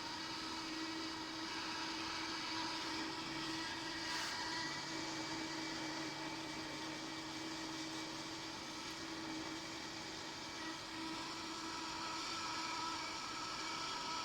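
Hot air rework blower running steadily, a fan whir with a constant hum, while it reflows the solder under a surface-mount clock generator IC.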